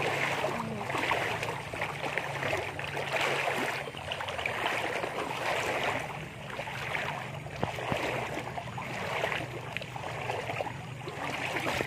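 River water flowing, a steady rushing noise that swells and eases, with a faint low hum under it.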